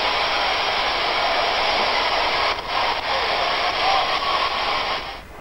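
Loud, steady rushing hiss with faint wavering tones under it. It dips briefly about two and a half seconds in and drops away near the end.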